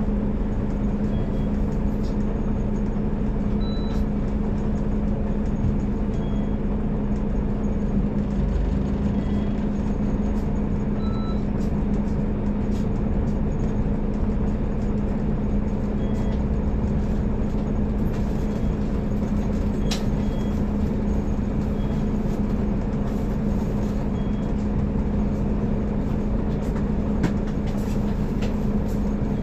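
Scania K360IB bus's DC13 13-litre inline-six diesel running steadily, a constant low drone with a brief dip about eight seconds in, with scattered light clicks and rattles.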